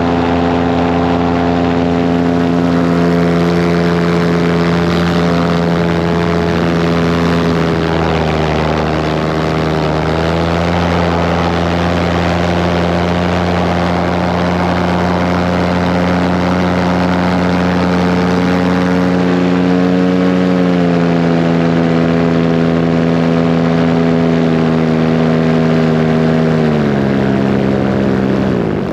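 Paramotor engine and propeller running steadily. The engine speed dips and comes back up about a third of the way in, eases down in steps later, and falls away sharply near the end as the throttle is pulled back.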